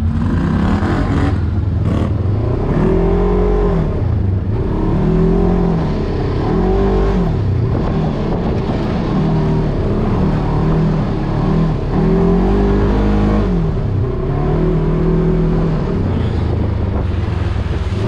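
Polaris RZR 1000 side-by-side's parallel-twin engine, heard from the driver's seat while driving, the revs rising and falling again and again as the throttle is opened and closed. A few short knocks come in among the engine sound.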